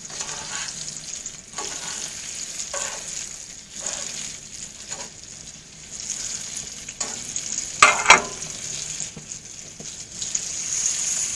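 Bluegill fillets sizzling as they fry in butter with onions, a steady hiss with louder bursts about once a second. A short, sharp clatter about eight seconds in is the loudest sound.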